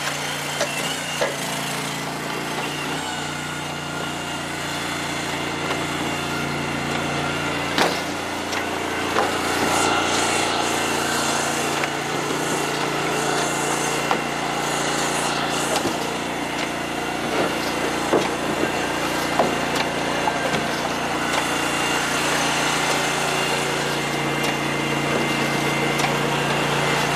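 Engine running steadily to power a hydraulic log splitter and belt conveyor, with irregular cracks and knocks as ash rounds split and the splits drop onto the conveyor.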